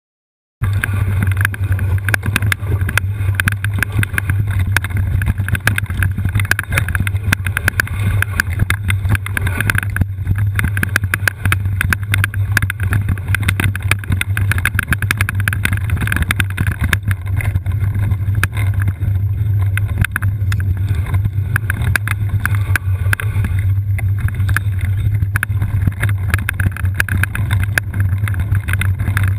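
Steady rumble and constant rattling of a downhill all-terrain wheelchair rolling over a rough trail, with wind buffeting the microphone. It starts suddenly about half a second in.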